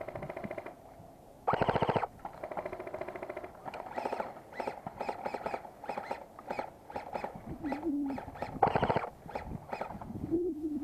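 Airsoft guns firing: a short full-auto burst, then a run of single shots, then another burst.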